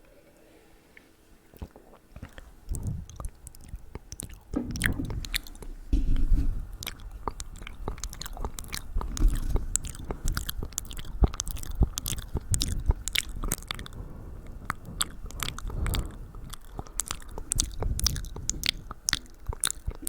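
Close-up ASMR mouth sounds right at the microphone: many quick, wet clicks and smacks of lips and tongue, with low thumps among them, starting a couple of seconds in.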